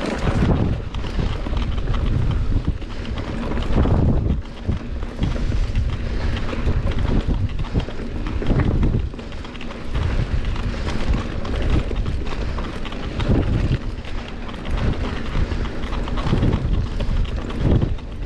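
Wind buffeting the microphone: a loud, gusty low rumble that surges and drops irregularly.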